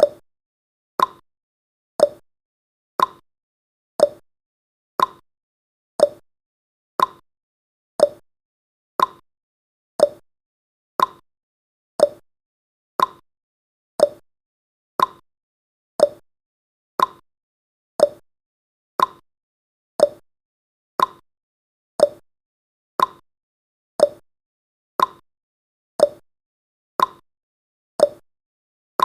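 Countdown timer's ticking sound effect: one short, sharp tick every second, evenly spaced.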